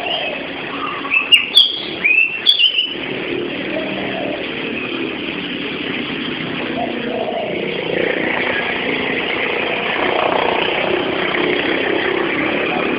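Steady outdoor background noise, with a cluster of short, loud, high-pitched squeals about one to three seconds in.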